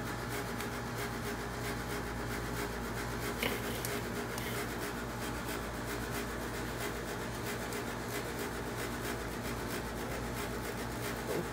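Metal cooking grate of a charcoal kettle grill being turned on the kettle by its handle: a steady rubbing noise over a low hum, with one light click about three and a half seconds in.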